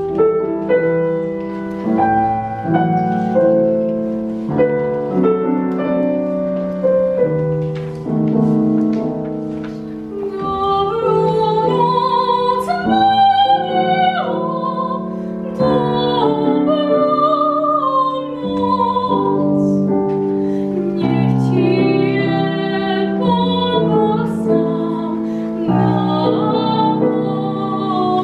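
Classical art song: a grand piano opens alone, and a female classical singer enters about ten seconds in, singing with vibrato over the piano accompaniment.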